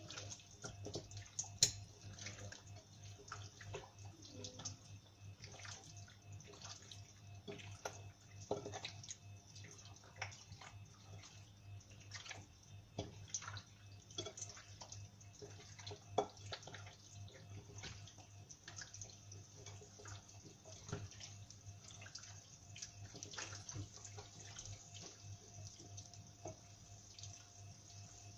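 Cooking oil heating in pans, crackling faintly with many small irregular pops and spits, over a low steady hum.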